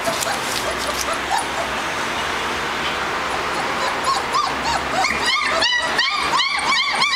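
German Shepherd puppies whimpering and yipping: a few faint calls at first, then from about four seconds in a quick run of short, high whines that rise and fall, several a second.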